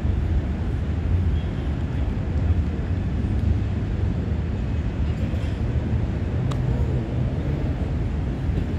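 Steady low outdoor rumble of background noise, with a faint tap or two.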